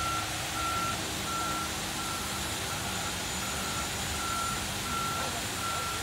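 Concrete mixer truck's backup alarm beeping steadily, about three beeps every two seconds, over the truck's engine running.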